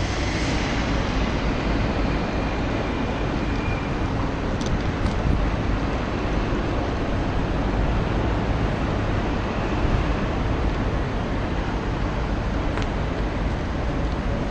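A c2c Class 357 Electrostar electric multiple unit running slowly into the platform: a steady rumble, heaviest in the low end, with faint clicks about five seconds in and again near the end.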